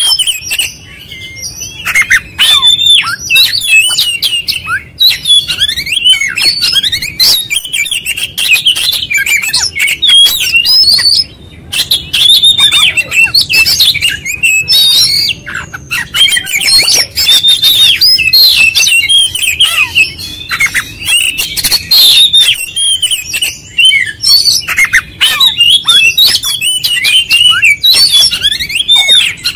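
Oriental magpie-robin singing continuously and loudly: a fast, varied run of whistles, chirps and harsh notes, broken by short pauses about a second in and again near the middle.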